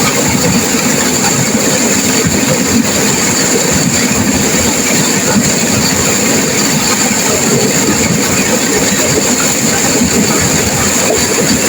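Turbulent river water rushing and crashing: a steady, loud noise that holds even throughout.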